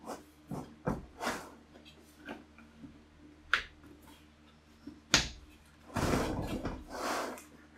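Round plywood lid being shifted and turned on the rim of a plastic bucket by hand: a few sharp knocks of wood against plastic, with the sharpest about five seconds in, and stretches of scraping and rubbing, the longest just after it.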